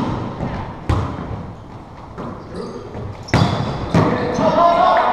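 Volleyball being struck during an indoor rally: three sharp slaps of hands or forearms on the ball, about a second in and then two about half a second apart after three seconds, echoing in the gym. Players shout near the end.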